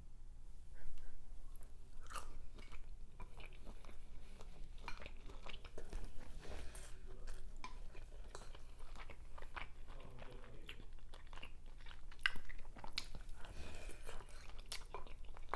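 Close-miked chewing and biting of a person eating a seafood boil, with many wet mouth clicks and small crunches throughout.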